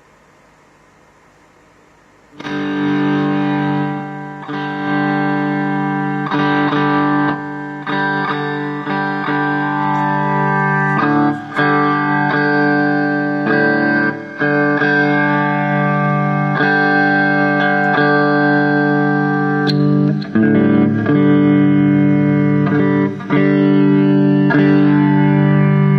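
Electric guitar played through distortion and effects pedals, ringing out held distorted chords that change every second or two with brief breaks between some of them. It comes in suddenly about two seconds in, after a faint amplifier hiss.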